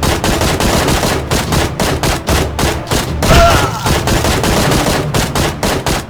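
Rapid gunfire in fast bursts, many shots a second without a break.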